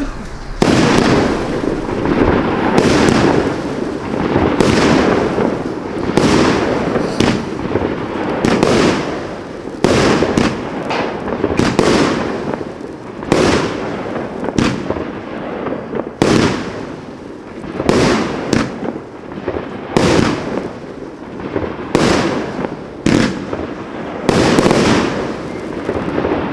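Consumer firework cake, the Panda Fireworks 'Chameleon' (EP3296), firing shot after shot: a sharp report about once a second, with a continuous crackling hiss between them.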